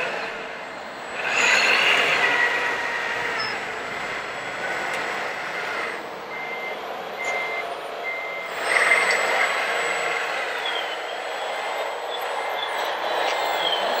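Electronic reversing beeper of a radio-controlled model construction machine's sound module, beeping at an even rate of roughly one and a half beeps a second from about halfway in. It runs over a din of model machinery, with two loud bursts of hiss, about a second in and near the middle.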